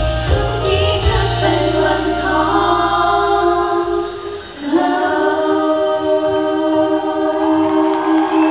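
Live girl-group pop song: backing music with a strong bass that drops out about four seconds in. The singers then hold one long note together, almost unaccompanied.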